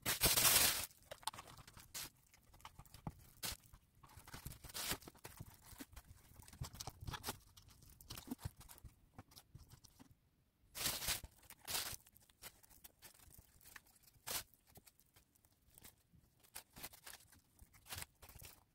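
Hands handling and pressing wet papier-mâché pulp onto a paper-wrapped plastic bottle form, with paper and plastic rustling: irregular short crackles, loudest at the very start and in two bursts about 11 and 12 seconds in.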